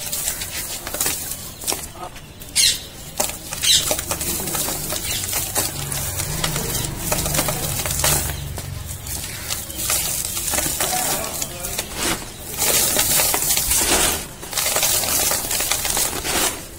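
Dry, dusty cardboard being crushed and crumbled between the fingers: a dense, continuous run of crunches and crackles, with a couple of louder sharp snaps a few seconds in.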